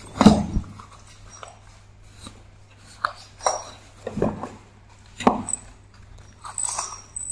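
Kittens' paws scrabbling and thumping on flattened cardboard sheets as they play: scattered short scratches and bumps, the loudest just after the start.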